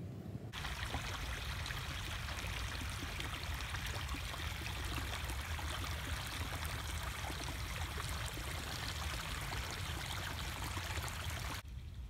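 Shallow creek water flowing and splashing past a log, a steady rushing that starts abruptly about half a second in and cuts off suddenly near the end.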